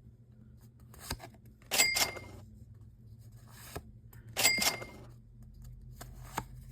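Trading cards being handled one at a time: a light tap followed by a quick papery slide as each card is moved through the stack, about every two and a half seconds, with a third tap near the end.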